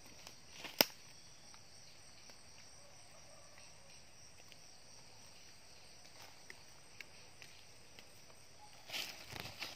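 A steady, faint chorus of night insects making a high hiss. There is one sharp click about a second in, and rustling footsteps through leaf litter near the end.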